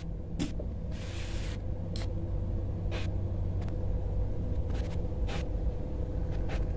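Steady low background rumble with a faint steady hum, broken by a few soft clicks and a brief rustling hiss about a second in.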